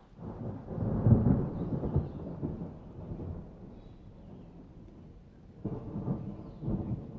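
Thunder rumbling: a deep roll that swells about a second in and slowly fades, then a second, shorter rumble near the end.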